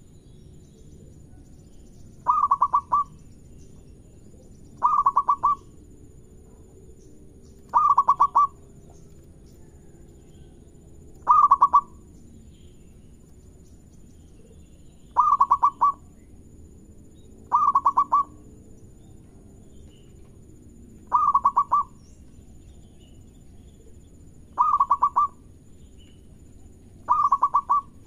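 Local zebra dove (perkutut) singing its cooing song: nine short clusters of quick, stuttering notes, each under a second long and repeated about every three seconds.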